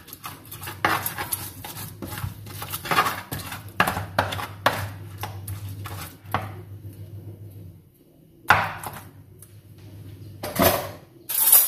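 Pestle grinding fried chilies and shrimp paste into sambal in a large cobek mortar, with irregular scraping and knocking strokes. The strokes die down past the middle, then a few louder single knocks come near the end.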